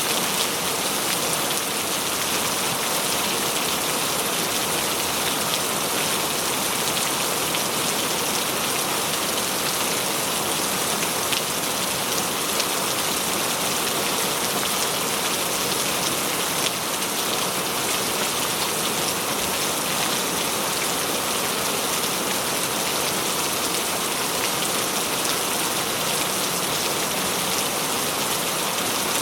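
Steady rainfall pattering on a surface, a dense even hiss with fine scattered drop ticks.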